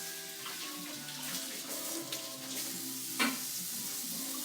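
Water being poured into a pot of hot sautéed vegetables, hissing and sizzling, over background music. There is one sharp knock about three seconds in.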